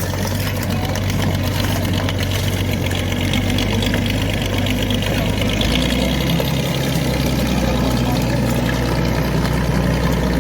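Bulldozer's diesel engine running steadily; its note drops lower a little over halfway through.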